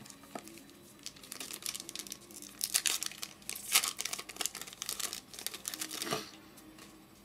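Foil wrapper of a 2008 Topps Allen & Ginter trading card pack crinkling and tearing as it is ripped open by hand, in quick irregular crackles that are busiest through the middle.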